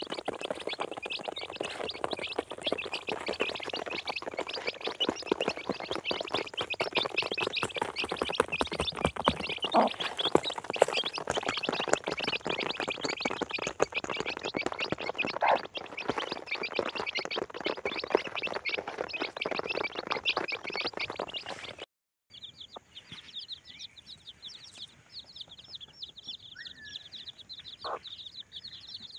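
A brood of domestic chicks peeping rapidly and non-stop while they and the hen peck grain off cardboard, with many quick taps. About 22 seconds in the sound breaks off briefly, and then the peeping goes on more quietly.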